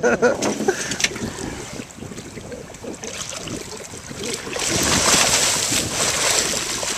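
A large hooked fish thrashing at the surface against the side of the boat, splashing water as it is gaffed and roped. The splashing grows loud about two-thirds of the way in, over steady wind and sea noise.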